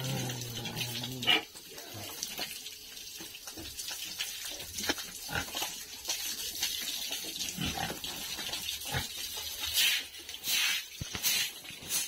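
Water from a hose splashing over pigs and the wet pen floor, with pigs grunting, most clearly about a second long at the start. A few louder splashy bursts come near the end.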